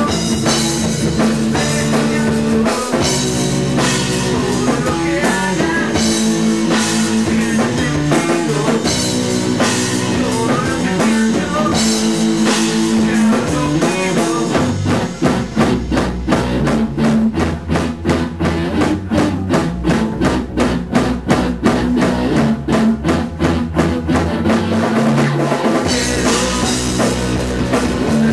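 Rock band playing live: electric guitar, bass guitar and drum kit. About halfway through the music drops into a choppy passage of short, even hits, about four a second, before the full band comes back near the end.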